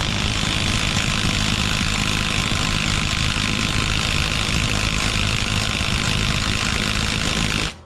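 Cordless impact wrench hammering steadily in reverse for about eight seconds on an over-tightened bolt, stopping sharply near the end. The bolt does not break loose.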